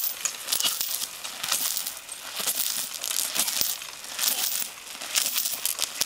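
A long power rope swung by a handle, sweeping and dragging across sandy, gravelly ground in repeated hissing, scraping strokes, about one or two a second.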